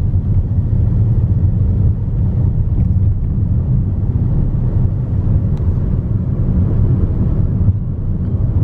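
Wind buffeting a compact camera's built-in microphone: a loud, steady low rumble that wavers slightly.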